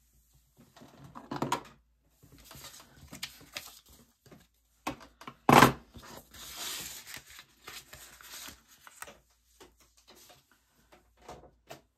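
Paper and card offcuts being handled and gathered off a cutting mat: irregular rustling and sliding, with one sharp knock about five and a half seconds in.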